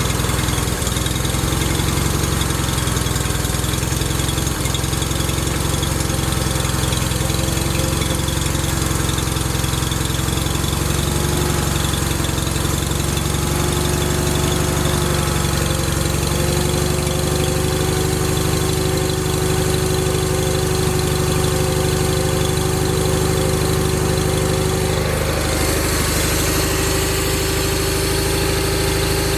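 John Deere 318 garden tractor's engine running steadily at idle, with a faint whine that climbs slowly in pitch and shifts about 25 seconds in.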